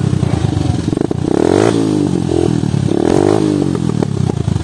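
Dirt-bike engine revving up and down several times, its pitch rising and falling, with a few clattering knocks.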